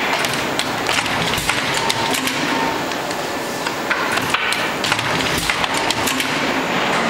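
Semi-automatic double wire binding machine being worked, with paper handled at it: irregular clicks and knocks over a steady workshop noise. A heavier thump comes about a second and a half in and again about five and a half seconds in.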